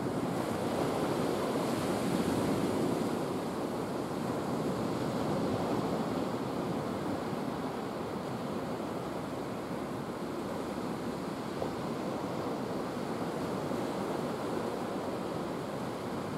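Thunderstorm: a steady rushing of rain and wind, a little louder in the first few seconds and then easing slightly.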